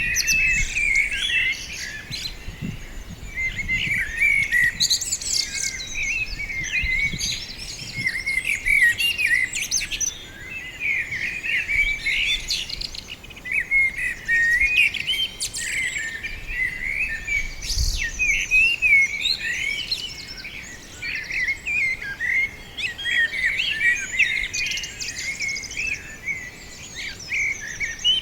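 Several small songbirds chirping and twittering continuously, many short high calls overlapping.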